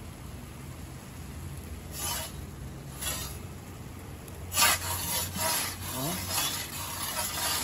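Metal pizza peel scraping across the stone floor of a gas pizza oven: two short scrapes, then a louder run of scraping strokes from about halfway as the peel slides under the pizza. Underneath, the oven's gas burners run with a steady low hum.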